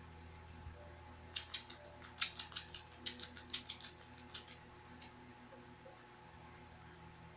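Red lipstick being pressed and rubbed across the lips: a quick run of small, sharp, wet clicks starting about a second in, lasting about three seconds, with one more click a little later.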